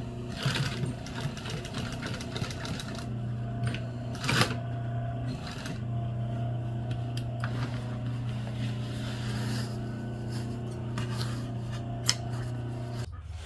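Sewing machine running steadily as vinyl upholstery pieces are stitched together, its motor giving a constant low hum with a few clicks and rustles on top; the machine stops near the end.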